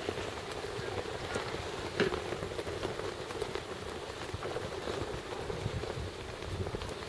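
Wind buffeting an outdoor microphone: a steady rushing noise over an uneven low rumble, with a single sharp click about two seconds in.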